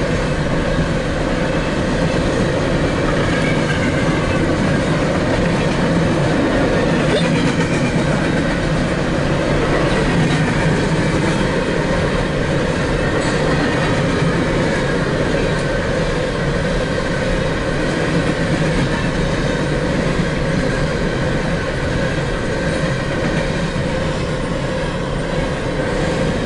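Empty coal train's freight cars rolling past at a steady speed: a continuous rumble and rattle of steel wheels on the rails, heard from inside a car.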